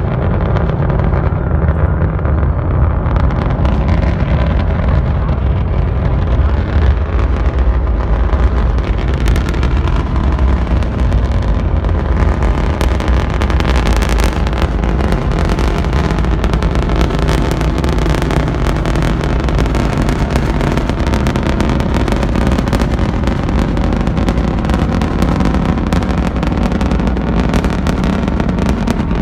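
Atlas V rocket's RD-180 first-stage engine heard at a distance while the rocket climbs: a loud, steady, deep rumble. A sharp crackle sets in about nine seconds in and keeps on.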